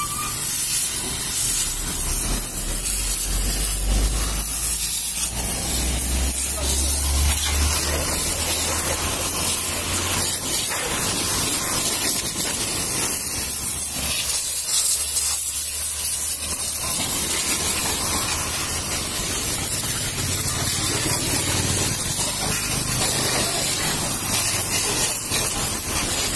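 High-pressure water jet spraying onto a motorcycle's engine, exhaust and wheel: a steady hiss with water spattering off the metal and the ground.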